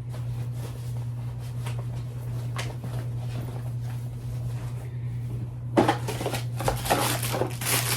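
Rummaging in a tool bag: faint rustling and light clicks, then louder rustling and clatter of items being handled from about six seconds in, over a steady low hum.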